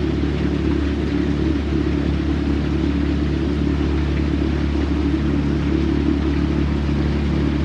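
Outboard motor of a small aluminium coaching launch running steadily at a constant cruising speed, a continuous engine drone with water and hull noise over it.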